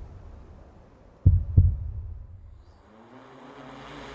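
Heartbeat sound effect: one deep double thump, lub-dub, about a second in. A low swell of sound starts rising near the end.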